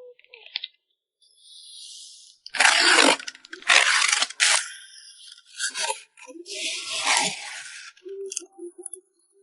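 Packing materials being handled while photocards are wrapped: rustling and scraping in several loud bursts over about five seconds, with background music coming back near the end.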